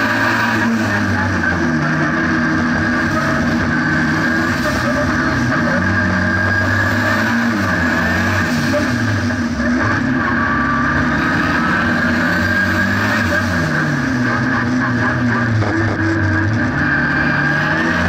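The tuned 1.4-litre turbocharged four-cylinder engine of a Renault 5 GT Turbo, heard from inside the cabin under hard track driving, its pitch repeatedly rising under acceleration and dropping at gear changes and lifts.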